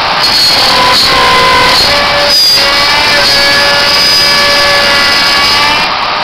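Small CNC milling machine cutting D16 duralumin: the spindle and cutter make a steady whine made of several tones, which jump to new pitches every half second to a second as the feed changes.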